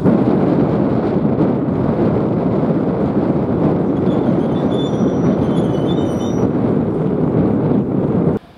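ČD Cargo class 742 diesel-electric shunting locomotive passing slowly at close range, its diesel engine running steadily under a dense, even noise. The sound cuts off suddenly near the end.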